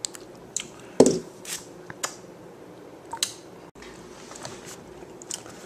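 A few scattered light clicks and soft knocks, the loudest about a second in, over a low room background, with a brief dropout near the middle.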